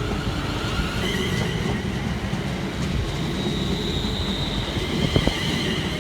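Class 350 electric multiple unit pulling out of the station: steady train noise, joined by a high, steady whine about a second in and a second, higher whine about three seconds in.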